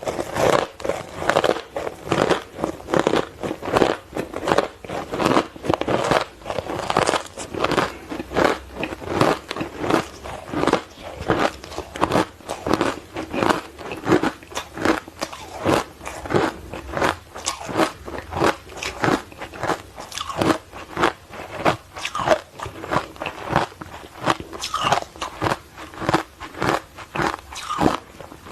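Hard ice coated in matcha powder being bitten and chewed: a steady run of crisp crunches, about two a second.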